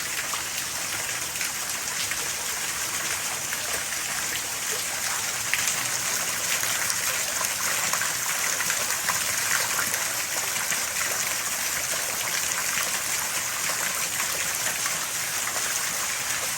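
Heavy rain falling steadily, with a constant rush of running water.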